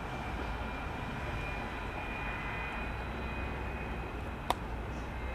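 Railway station platform ambience: a steady low rumble with a faint high whine, and one sharp click about four and a half seconds in.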